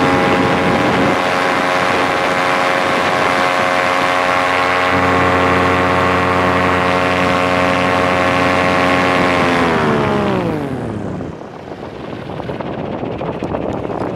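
Paramotor engine and propeller running steadily at high power, then throttled back about ten seconds in, the pitch falling over a second or so. After that, wind rushes over the microphone.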